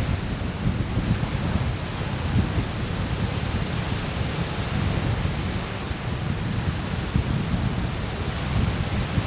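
Wind buffeting the microphone in a steady, gusty low rumble, over waves washing onto the Lake Michigan shore.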